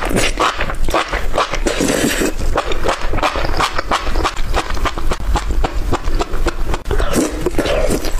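Close-miked eating sounds: a person chewing and crunching food, with dense irregular clicks and crackles.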